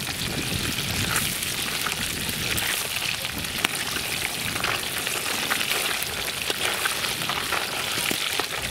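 Small fish deep-frying in hot oil in a cast-iron kazan: a steady sizzle with many small pops and crackles.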